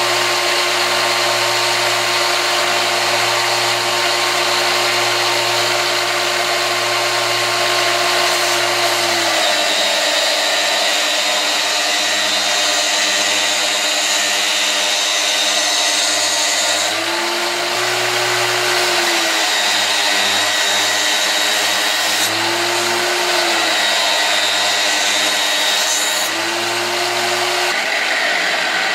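Belt grinder running, with a steel knife blade pressed against the abrasive belt and grinding in a shower of sparks. A steady, loud grinding noise with a motor note underneath; the note shifts several times in the second half as the blade is worked against the belt.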